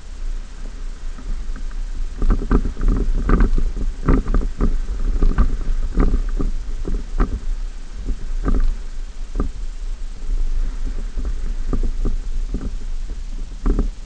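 Ford F-150's 5.0 L V8 running low as the truck drives slowly over rough beach sand, with frequent knocks and rattles as it jolts over the bumps, thickest in the first two-thirds.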